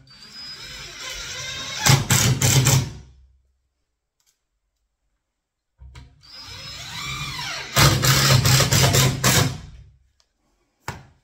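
Power drill driving screws into wood: two runs of the motor, each getting louder as the screw goes home, about two seconds in and again about eight seconds in.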